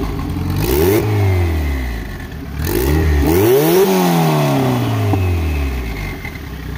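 Turbocharged Honda B20 VTEC engine blipped twice from idle in a Civic hatch, the revs climbing and falling back each time, the second rev higher and longer, then settling to idle. The owner takes it to be running very rich on a base map.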